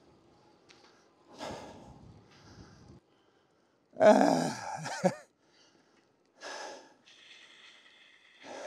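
A man breathing hard after pedalling a bicycle at full effort, in a few separate heavy breaths with a louder, voiced gasp about four seconds in.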